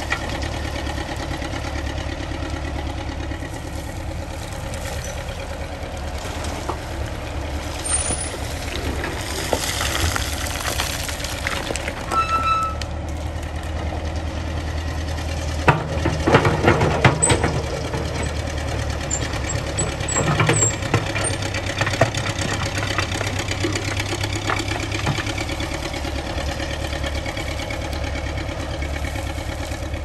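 Vintage Ruston Bucyrus 19-RB cable-operated backhoe working, its engine running steadily throughout. About halfway through comes a burst of clattering and scraping as the bucket digs into the rocky spoil, and a shorter burst follows a few seconds later.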